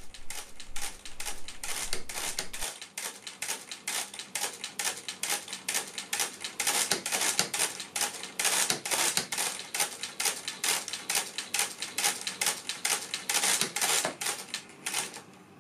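Hamann Manus Model R mechanical calculator being hand-cranked through an automatic division, its gears, registers and carriage making a fast, regular run of clicks as the quotient digits fill in one by one. The clicking stops just before the end.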